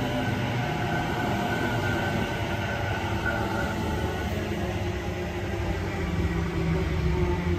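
Sydney Trains double-deck electric suburban train moving through a station: steady rumble of wheels on rail with the whine of its electric traction motors, a little louder near the end.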